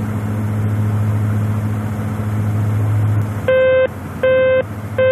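Steady drone of a twin-turboprop King Air's propellers and engines heard inside the cockpit; it eases a little about three seconds in. Then an electronic cockpit alert tone beeps three times, about one beep every three-quarters of a second.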